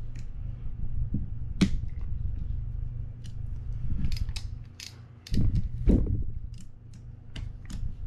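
Small metallic clicks and taps of an Allen key and screwdriver working the side-plate screws of a Penn International 30VSX fishing reel, with a heavier knock of the reel being handled around the middle, over a steady low hum.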